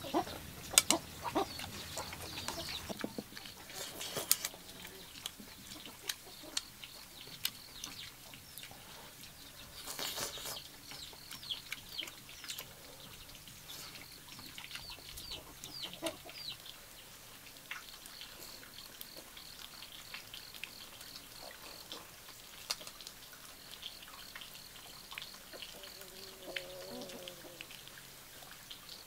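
Quiet rural yard ambience: small birds chirping and a pulsing insect-like buzz, with scattered soft clicks of chopsticks against a plastic bowl while eating. A chicken calls briefly near the end.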